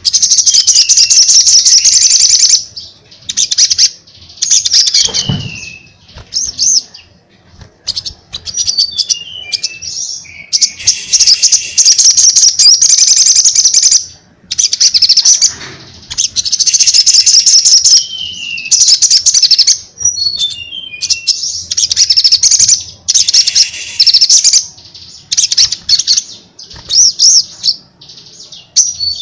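Male olive-backed sunbird singing loudly: long bouts of rapid, high-pitched twittering trills lasting a few seconds each, broken by short falling slurred notes and brief pauses.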